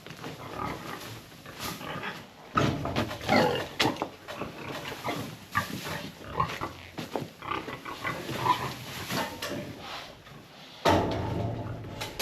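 Pigs grunting in short, irregular bursts. A louder low rumble starts suddenly near the end.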